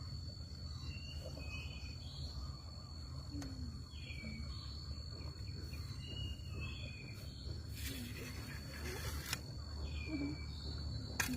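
Outdoor ambience: a steady high-pitched insect drone with short bird chirps every second or so, over a low rumble. A rustle lasting about a second and a half comes around eight seconds in.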